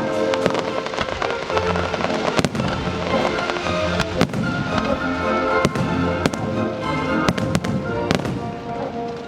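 Fireworks display: many sharp bangs and crackling bursts over music played over loudspeakers, the bangs thinning out near the end.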